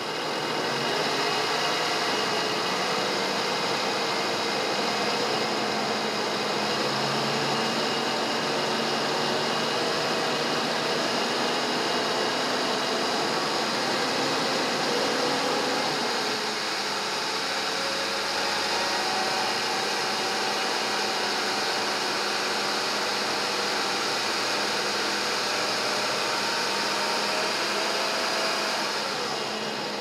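Ford 4.2-litre V6 engine of a 2001 F-150 running, its revs raised gradually by opening the throttle plate by hand, then let back down toward idle about halfway through.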